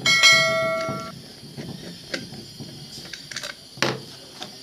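A metal clang rings out for about a second, then scattered clicks and knocks, one louder near the end, as the metal parts of a ceiling fan are handled while it is taken apart.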